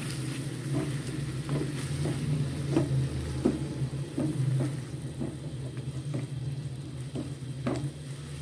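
Diced raw chicken sizzling in a nonstick frying pan while a silicone spatula stirs it, knocking and scraping against the pan about twice a second, over a steady low hum.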